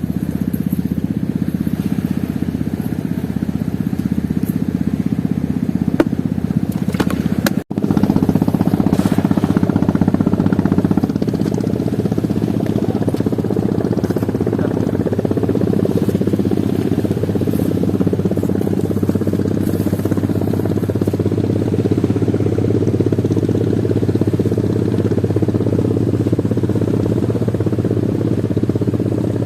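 A small engine running steadily at an even speed, cut off for an instant about eight seconds in and then running on unchanged.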